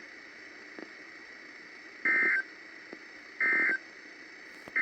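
NOAA Weather Radio SAME digital data bursts closing a warning: short, identical buzzy bursts about 1.4 s apart, two of them and a third beginning at the very end. Under them is the receiver's faint steady hiss. These are the end-of-message code that follows each alert.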